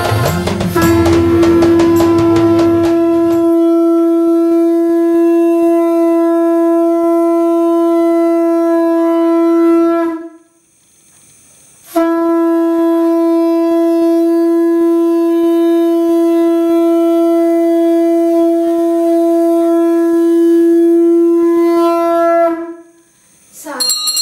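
Conch shell (shankha) blown in two long blasts of about ten seconds each, each held on one steady pitch, with a short break between them. Music with drums fades out during the first few seconds.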